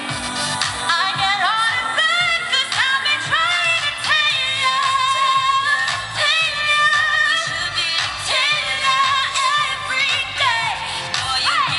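A woman singing a pop song live over backing music, amplified through outdoor PA speakers.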